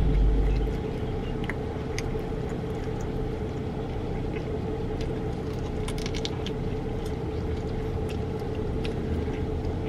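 Chewing and biting into chicken wings: scattered small wet clicks, with a cluster about six seconds in, over a steady hum.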